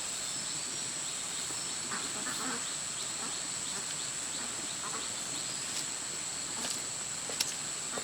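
Steady high-pitched insect drone with a few faint, short animal calls scattered through it, and a single sharp click near the end.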